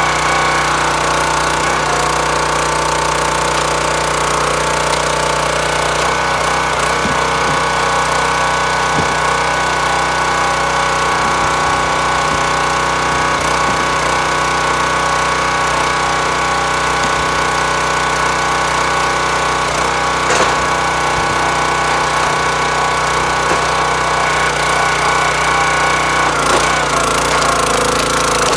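Small gas engine of a hydraulic log splitter running steadily under the pump's load while ash rounds are split, with a knock about twenty seconds in.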